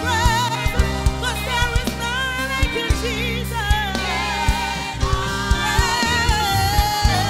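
Live gospel worship music: a woman's lead vocal with wide vibrato and a women's choir singing over a band with bass guitar and drum kit keeping a steady beat.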